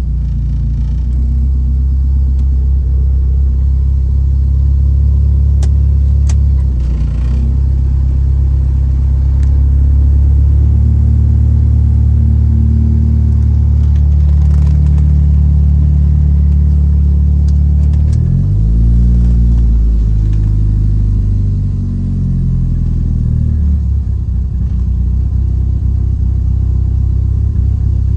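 1997 Mitsubishi Eclipse GSX's turbocharged 2.0-litre inline-four idling while warming up. The engine speed shifts up and down several times, with one short rise and fall about two-thirds of the way through. This is the unsettled idle the owner is trying to dial in.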